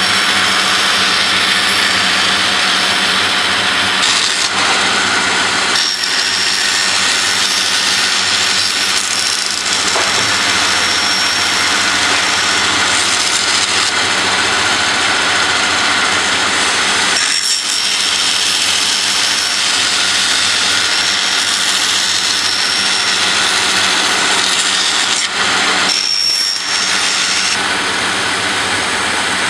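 Band saw running steadily and cutting through a resin-and-fabric composite layup on a board, with a high thin whine that comes and goes during the cut.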